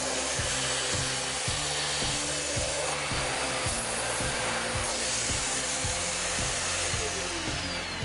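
Vacuum cleaner running steadily with a standard floor-brush nozzle as it is pushed back and forth over a hair-covered carpet, an even rushing hiss. Background music with a steady beat plays underneath, and the vacuum noise thins out at the very end.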